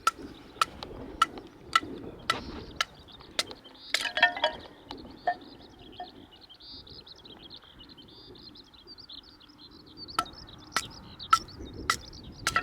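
Sharp, evenly spaced knocks, about one every 0.6 seconds, each with a short ringing tone. They stop after about three and a half seconds and start again near the end. A brief clink of several ringing tones comes about four seconds in, and birds chirp faintly in the gap.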